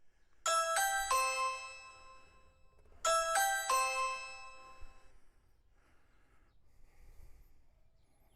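Ring doorbell chime: a quick run of bell-like notes, played twice about two and a half seconds apart, each ringing out. It is the button being pressed to test the freshly installed Ring Video Doorbell 2.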